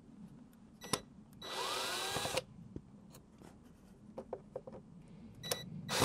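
Ryobi cordless drill/driver with a Phillips bit whirring for just under a second, its pitch rising as it spins up, backing out a screw that holds the mass airflow sensor. Small clicks of handling come around it, and a second short burst of the drill starts right at the end.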